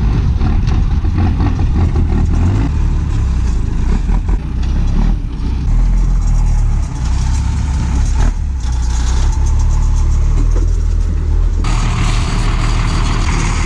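Engine of a 6x6 ex-military REO cargo truck loaded with sugar cane, running with a steady deep rumble. Near the end the sound changes suddenly to a brighter hiss over the rumble.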